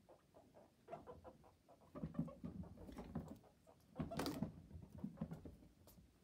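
A baby guinea pig's feet pattering and thumping on the cage floor as it dashes about in quick bursts, with one louder knock about four seconds in.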